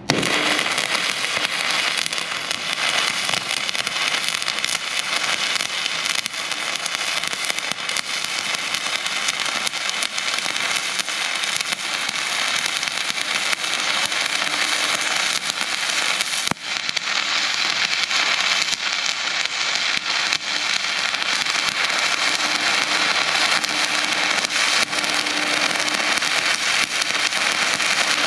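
Stick (manual arc) welding: a coated electrode burning in a steady crackling sizzle, struck abruptly right at the start, with a brief break in the arc about 16 seconds in. The electrode is running smoothly and evenly.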